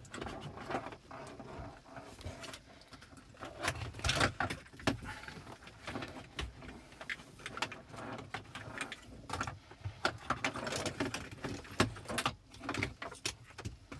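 Wiring harness and plastic connector being worked through the back of the dashboard by hand: irregular clicks, rattles and scrapes of plastic and cable against the dash trim.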